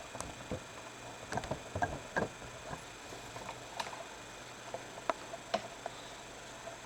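Irregular light clicks and taps of hands working on a laptop's parts, busiest about two seconds in and again around five seconds.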